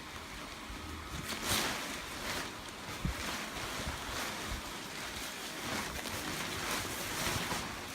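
Airblown inflatable's built-in blower fan running steadily as the nylon fabric fills with air and rustles, in swells every second or so, with a brief low knock about three seconds in.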